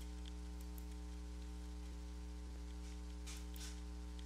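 Steady low electrical mains hum with a ladder of overtones, picked up by the recording setup. A few faint clicks and a brief soft hiss about three seconds in sit on top of it.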